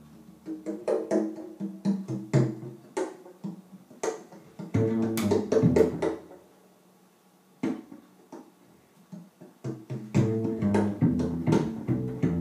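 Upright bass played pizzicato, plucked low notes mixed with sharp percussive hits. The playing thins out to a few scattered hits a little past the middle and picks up again near the end.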